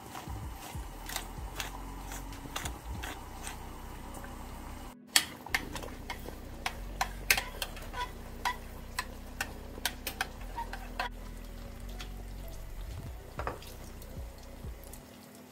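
Thick tomato sauce simmering in a stainless-steel saucepan, with irregular sharp pops and clicks as a spoon stirs it.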